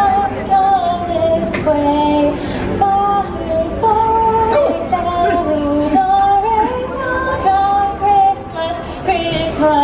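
A woman's voice singing a melody of held, gliding notes over a musical backing track.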